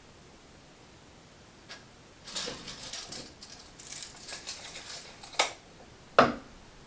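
Retractable tape measure handled: its steel blade rattles and scrapes for a few seconds as it is pulled out and run back, ending in a sharp click, then a louder knock as the tape measure is put down on the wooden tabletop.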